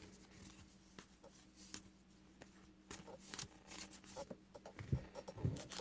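Faint handling of a trading-card pack and cards: scattered light clicks and taps, with a few louder soft knocks near the end.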